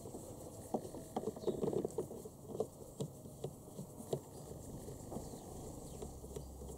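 Crosshead screwdriver turning a bolt through the steering column of a ride-on toy tractor: faint, irregular small clicks and scrapes.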